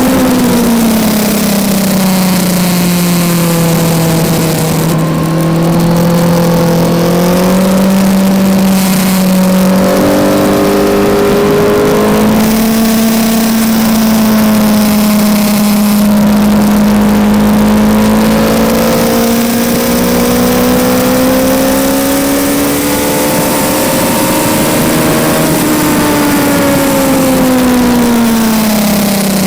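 Kawasaki Z900's inline-four engine recorded onboard while riding, its note falling off, stepping up abruptly a couple of times, climbing slowly under throttle, then dropping away again near the end, with steady wind rush over the microphone.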